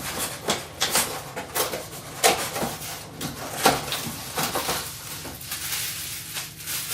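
Packaging being handled and opened: an irregular run of crinkles, rustles and small knocks as a wrapped part is unpacked.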